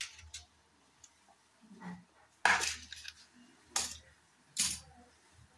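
A kitchen knife and a steel plate clinking as they are handled and set down on a stone countertop: three sharp clinks, the first, about two and a half seconds in, the loudest, with a few lighter knocks between.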